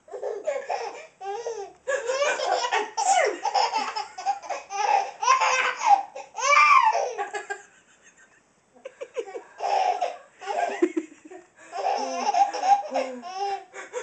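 Baby laughing hysterically in repeated peals, breaking off briefly about eight seconds in before laughing again.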